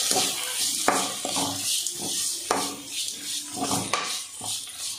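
Metal spoon stirring and scraping tomato masala around an aluminium kadai, with several short scrapes and knocks against the pan over a steady sizzle of the frying masala.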